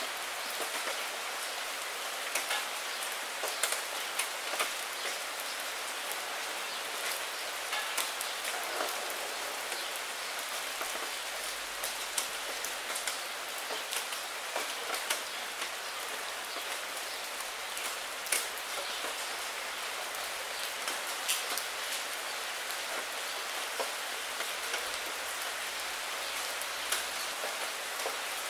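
Steady rain falling on a puddle and wet fallen maple leaves: an even hiss, with many single louder drop hits standing out all through.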